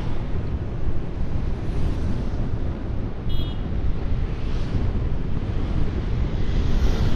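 Wind buffeting the microphone over the steady rumble of a moving vehicle's engine and tyres on the road.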